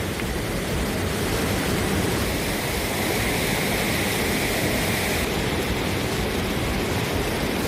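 Kaveri river in flood, its water rushing with a steady, even roar.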